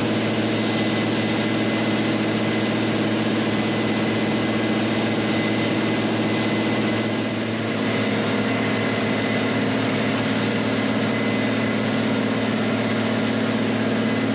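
Heavy farm diesel engine, from a tractor or combine, running steadily at constant speed, with a thin high whine over it.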